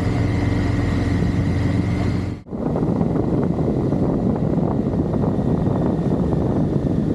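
Motorcycle engine running at a steady pace, then, after a sudden cut about two and a half seconds in, wind rushing over the microphone with the engine underneath at road speed.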